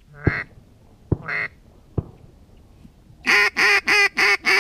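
Duck quacking: two single quacks near the start, then from about three seconds in a fast, even run of loud quacks, about three a second. A few short sharp knocks fall in between.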